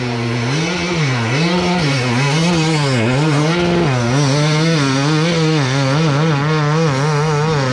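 KTM EXC 300 two-stroke enduro bike engine, heard close up, its revs rising and falling in quick repeated waves as the throttle is worked on a steep forest climb.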